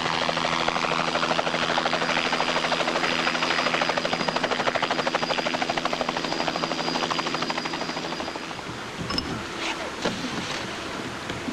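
A helicopter flying past with a fast, even beat of its rotor blades, fading away about eight seconds in. Faint scattered clicks and rustle follow.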